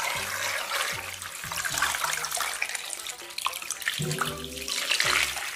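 A stream of water running and splashing onto singed, blackened pig trotters as they are rinsed in a basin.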